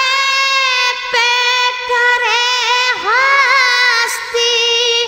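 A high voice singing a devotional Urdu nasheed, holding one long note with wavering ornaments and small dips in pitch.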